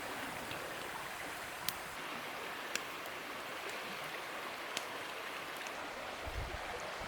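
Campfire crackling: a few sharp, separate pops over a steady rushing hiss, with a couple of low bumps near the end.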